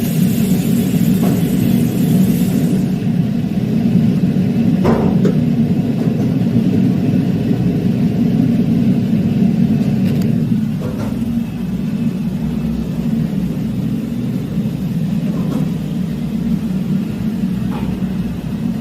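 Steady low machinery rumble with a high hiss over it that cuts off about three seconds in; a few faint brief squeaks and ticks.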